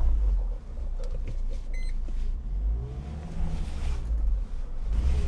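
Jiangling Yusheng's 2.4-litre turbodiesel engine running at low revs as the 4x4 crawls down a steep off-road slope, with a few faint clicks and knocks about a second in.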